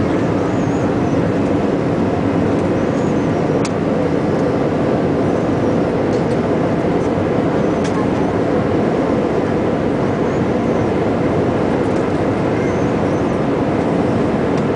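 Steady drone of the jet engines and rushing air, heard inside the cabin of an Airbus A320 climbing out after takeoff.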